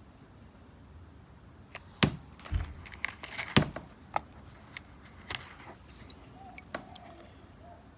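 A few separate sharp clicks and light knocks of small hard pieces being handled and set down, the loudest about two and three and a half seconds in. These are the stones of a rough opal parcel being looked over piece by piece.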